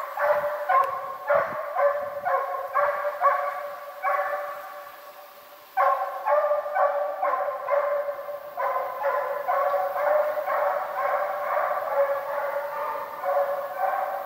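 Russian hounds baying in full cry, giving tongue on a hare's trail: a fast run of high, ringing barks, about two to three a second. The barking fades away after about four seconds, then starts again abruptly at full strength.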